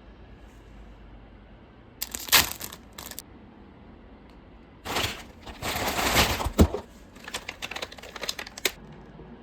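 Packaging handled up close: two bursts of crinkling rustles and quick clicks, a short one about two seconds in and a longer one from about five seconds in.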